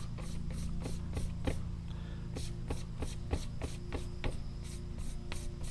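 A broadhead blade being stropped in quick back-and-forth strokes, about three a second, to strip the last of the burr and finish the edge after filing.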